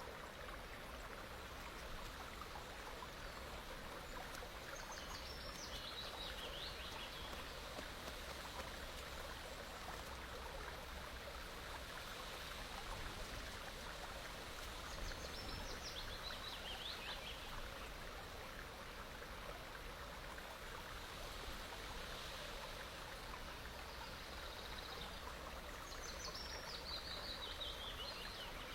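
Steady outdoor rushing background noise, with a small bird singing a short descending trill three times, about ten seconds apart.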